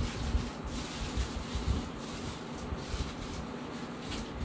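Godrej 1-ton split inverter air conditioner's indoor unit running, blowing air with a steady hiss and an uneven low rumble.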